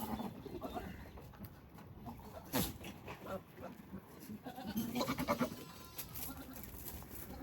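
Goats bleating: a call trailing off at the start and another bleat about five seconds in, with a single sharp knock a little over two seconds in.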